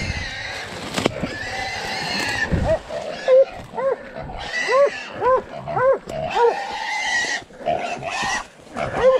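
Wild hog squealing: a long harsh squeal at first, then from about three seconds in a run of short rising-and-falling squeals, roughly one or two a second.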